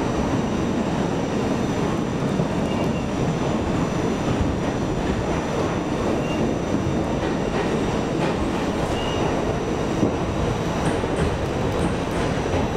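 New York City subway train in motion, heard from inside the car: a steady rumble of wheels on rail, with a few brief, faint wheel squeals and some clicks near the end.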